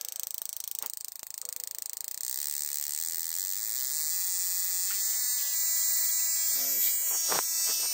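Spark plug checker firing a carbon-fouled spark plug: a fast run of ticking sparks, then from about two seconds in a steady electric buzz that grows a little louder. The spark is breaking up, the sign of a fouled plug that is misfiring.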